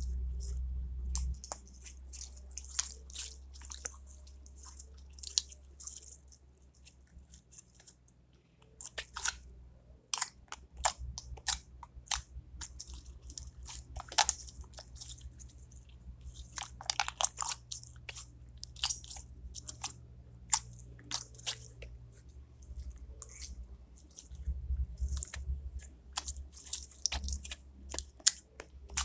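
Slime being squeezed and worked by hand, giving an irregular run of crackling, popping clicks and snaps.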